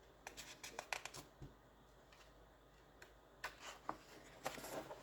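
Pages of a paper colouring magazine being turned and handled: two short spells of paper rustling and flicking, one just after the start and another near the end.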